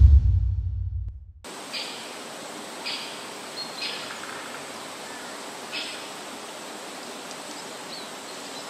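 A deep bass boom fading out over the first second and a half, then outdoor ambience: a steady hiss with a faint constant high whine and a few short bird chirps about a second apart.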